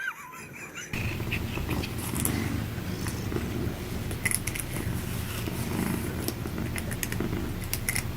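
Domestic cat purring close to the microphone, a steady low rumble that starts about a second in, with a few faint clicks over it.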